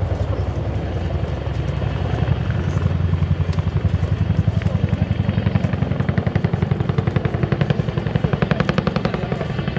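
Boeing CH-47J Chinook tandem-rotor helicopter hovering: its rotors beat in a rapid, even pulse over a deep steady rumble. The blade beat grows sharper in the last few seconds.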